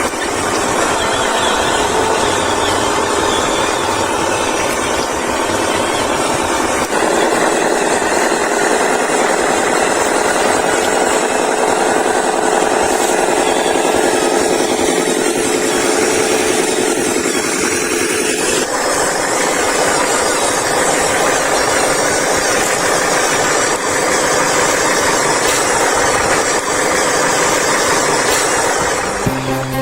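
Radio-controlled toy construction vehicles running, their small motors and gearboxes whirring steadily, with the pitch changing abruptly twice as the motors change speed or load.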